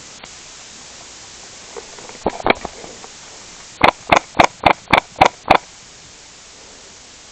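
Airsoft rifle firing: two or three shots a little over two seconds in, then a quick run of seven shots about a quarter second apart.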